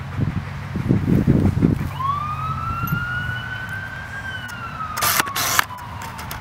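Emergency vehicle siren wailing: over about four seconds its pitch rises slowly, then falls slowly. There is low rumbling noise about a second in and a short burst of hiss about five seconds in.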